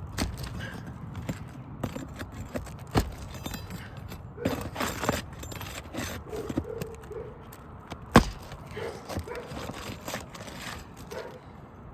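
Roofing nails being worked loose under brittle asphalt shingles: scraping, clicks and knocks, with one sharp strike about eight seconds in. The nails are hard to pull because an older 3-tab shingle layer lies under the architectural shingles.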